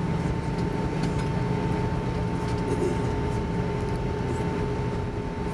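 Airbus A320 cabin noise while taxiing: the jet engines idling, with a steady whine over a low rumble.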